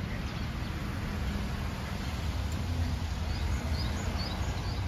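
Small birds chirping, a few short high notes in the second half, over a steady low street-side background noise.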